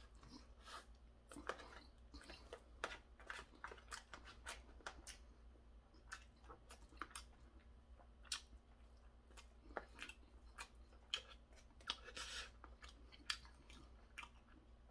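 Close-up chewing of stir-fried pork cartilage: faint, irregular crunches and clicks as the gristle is bitten through, a few of them sharper and louder.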